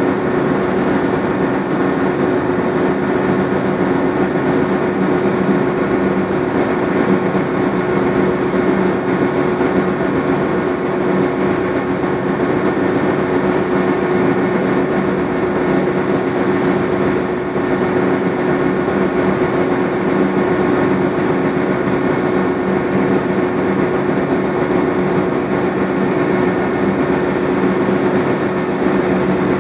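Marine diesel engine running steadily: a constant hum with several fixed pitches that holds level throughout.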